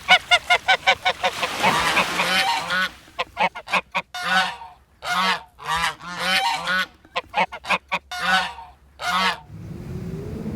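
Repeated bird calls laid in as a sound effect: a fast run of calls, about five a second, then separate calls with short gaps between them. Near the end a low, rising sound begins.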